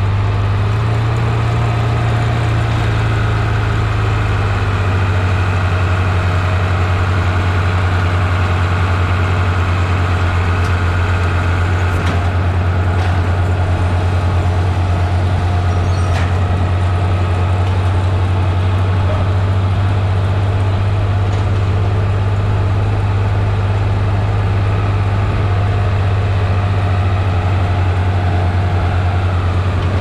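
New Holland TB120 tractor's diesel engine running steadily as it pulls a New Holland 1036 bale wagon picking up small square bales, with a few faint clicks in the middle.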